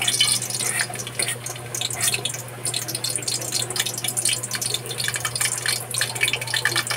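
Minced garlic sizzling in hot oil in a wok: a steady, dense crackle of tiny pops over a low steady hum.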